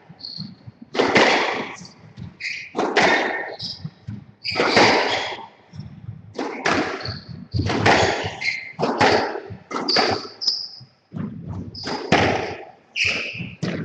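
Squash rally: a squash ball struck hard by rackets and hitting the walls again and again, about once a second or faster, each hit ringing in the enclosed court, with short high squeaks of shoes on the wooden court floor between shots.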